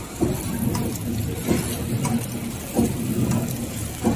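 FDKZB-350X servo pillow packing machine running while wrapping face masks: steady mechanical running noise with a sharp knock repeating about every one and a quarter seconds.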